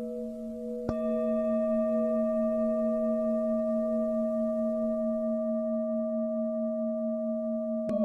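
Tibetan singing bowls ringing with a low, wavering hum. A bowl is struck about a second in and again near the end, and each strike sets off a fresh ring.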